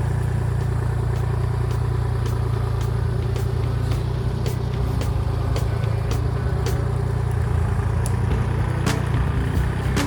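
Kubota L2501 compact tractor's diesel engine running steadily, with scattered clicks and clanks from its implement scraping the ground.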